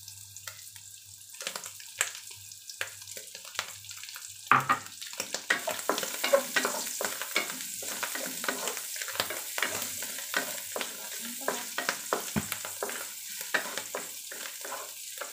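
Dried shrimp, dried radish and garlic sizzling in oil in a non-stick wok, stirred and scraped with a wooden spatula in many quick strokes. The stirring starts about a second and a half in, and the sizzle grows louder from about five seconds in.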